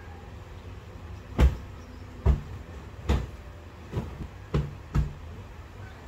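Six soft, dull thumps at irregular spacing as hands pat and smooth pillows and bedding on a bed, over a steady low background hum.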